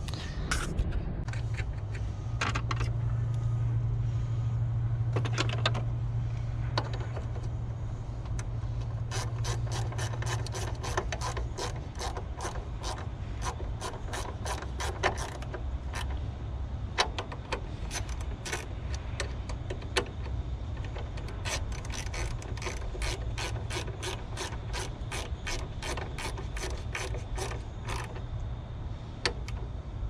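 Ratchet wrench clicking in short quick runs as the power steering reservoir is bolted back in place. A steady low hum runs under it for the first ten seconds or so.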